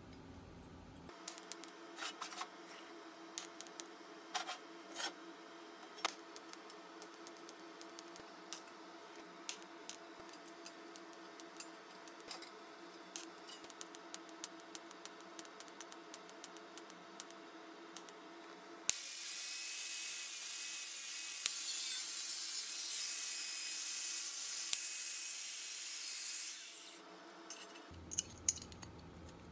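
Hand work on a metal gas can: light scraping and rubbing strokes with scattered clicks, then a loud, steady hiss for about eight seconds.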